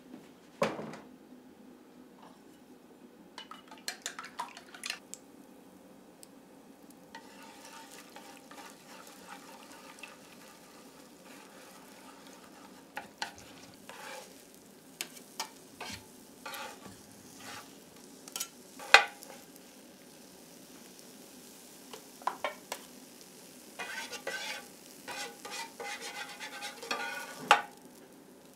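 Beaten egg sizzling in hot olive oil on an electric hot plate while two metal turners scramble it. The turners scrape and click against the plate's nonstick surface. The sizzle starts about seven seconds in, and a busy run of scraping comes near the end as the egg is lifted off.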